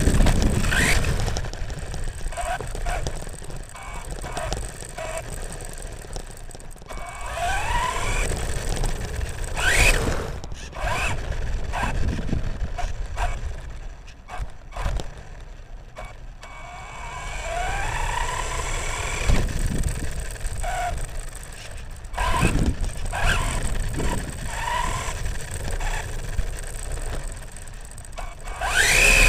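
Electric motor and gear drivetrain of a 9115 RC monster truck whining, the pitch rising and falling again and again as the throttle is worked in bursts, over a low rumble of the tyres on rough ground. About halfway through the truck eases off and goes quieter for a few seconds.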